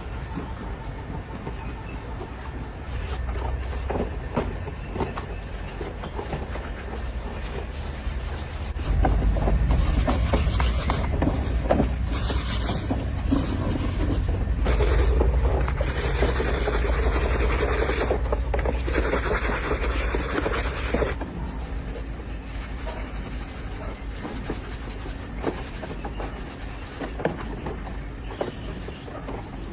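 Rough rubbing and scraping, as in abrasive work on rice cooker parts, that grows much louder about a third of the way in and eases back about two-thirds of the way through.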